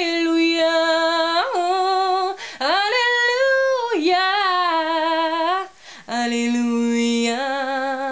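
A woman singing unaccompanied in French pop style, holding a few long drawn-out notes with vibrato. The notes climb higher in the middle, and after a short breath about six seconds in she settles on a lower note.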